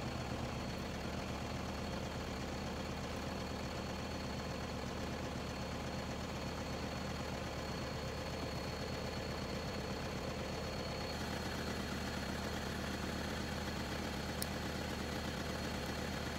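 A vehicle engine idling steadily under a low hum, with a single sharp click about two seconds before the end.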